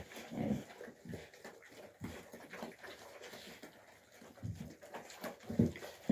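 Central Asian Shepherd (Alabai) puppies eating from metal bowls, making irregular chewing, snuffling and slurping noises, with a few louder bursts near the end.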